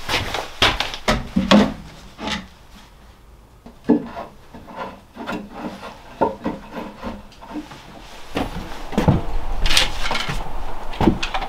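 Wood being worked by hand: irregular rubbing and scraping strokes with scattered knocks, quieter for a moment a few seconds in and busier near the end.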